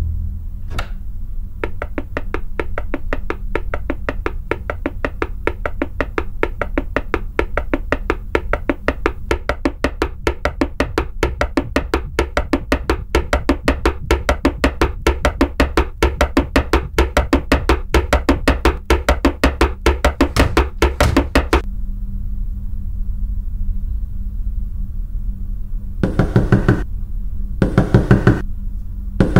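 Fast, even tapping over a low droning suspense score; it stops about two-thirds of the way in. Near the end come three bursts of loud knocking on a wooden door.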